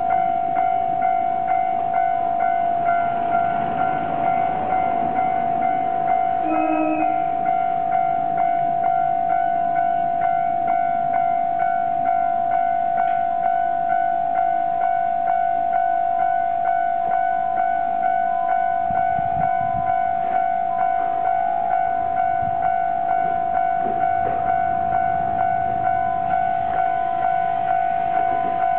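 Japanese railway level-crossing warning bell ringing: an electronic ding repeated at an even, steady pace. A low rumble joins about two-thirds of the way through.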